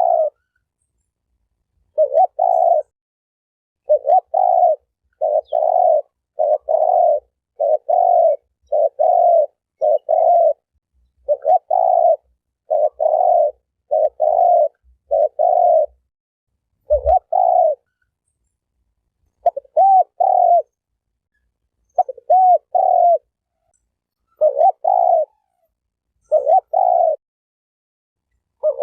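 A spotted dove cooing over and over: short, low notes in pairs and runs, separated by dead silence, as in an edited lure recording. A soft low thump comes about two-thirds of the way through.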